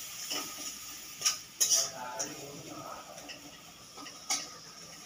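A metal spatula scraping and knocking against a metal kadai as a thick onion-and-spice masala is stirred and fried down, in irregular strokes. A few sharper scrapes come about a second and a half in and again near four seconds.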